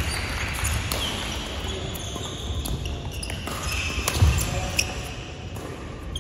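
A badminton doubles rally on a wooden gym floor: sharp racket hits on the shuttlecock, sneakers squeaking and feet thudding, with a loud overhead smash about four seconds in.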